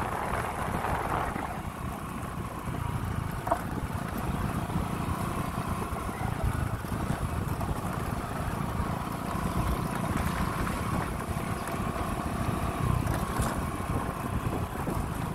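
An engine running steadily: a low rumble with a faint, steady whine over it.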